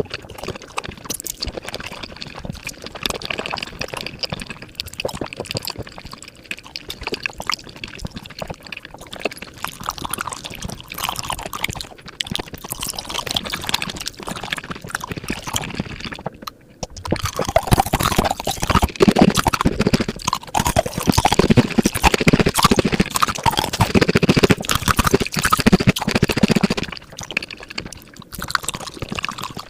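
Close-miked mukbang eating sounds sped up to five times normal speed: a rapid, dense stream of wet chewing and slurping clicks. After a brief break past the middle, a louder, fuller stretch follows.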